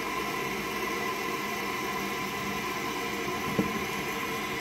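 Newly fitted toilet cistern inlet valve letting water in after the supply is turned back on: a steady hiss of the cistern slowly filling, with faint steady tones through it. One light tap about three and a half seconds in.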